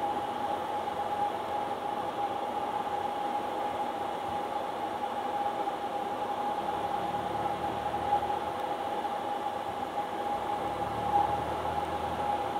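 Cessna 172's single piston engine and propeller droning steadily, heard inside the cabin, with a steady high hum running through it.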